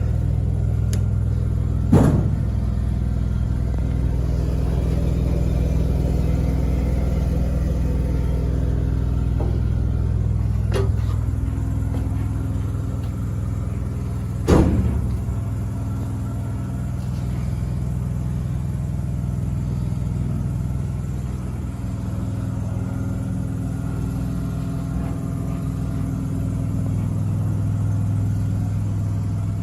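Engine idling steadily, broken by three sharp knocks: one about two seconds in, one near eleven seconds and one near fourteen and a half seconds.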